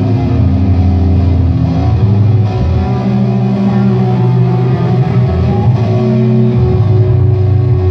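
A live rock band playing loud through the hall's PA: distorted electric guitars and bass guitar hold heavy, low chords that change every second or two.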